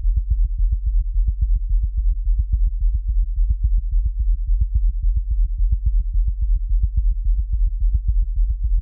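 Synthesized heartbeat sound effect made from deep synthetic bass: low thumps in a fast, steady rhythm, a pounding, racing heartbeat.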